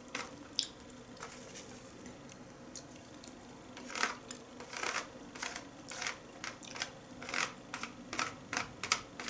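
Close-up eating sounds from a person picking at sushi rolls with wooden chopsticks: a run of short, sharp clicks, sparse at first and then coming about twice a second from about four seconds in.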